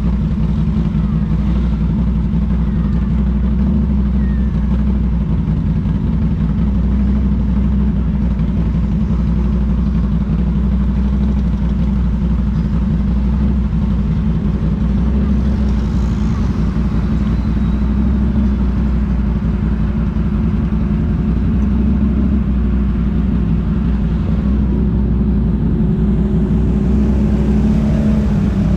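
ATV engine running steadily, with the revs rising slightly near the end.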